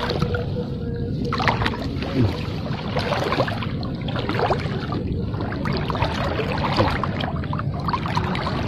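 Swamp water sloshing and splashing around a person's legs as they wade through it, with small irregular splashes throughout.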